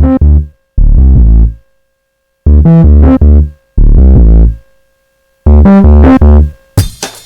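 Synthesizer bass riff played as short repeated phrases of a few notes with silent gaps between them, overdriven through a spectral-clipper saturation plugin. Near the end a drum kit pattern starts.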